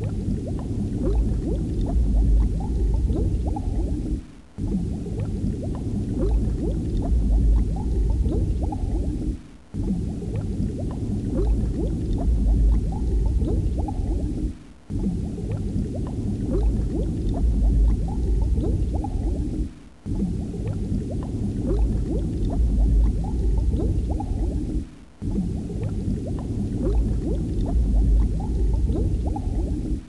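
Underwater ambience of steady low bubbling and gurgling water, looped so that it repeats about every five seconds with a brief dip between repeats.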